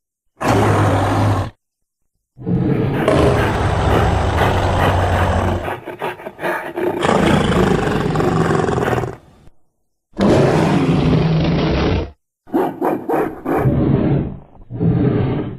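Caveman sound effects: a series of deep, voice-like roars and growls in the manner of a huge ape-man, each cut off abruptly by silence. A short roar, a long one of about seven seconds, a two-second one, then a run of short choppy grunts near the end.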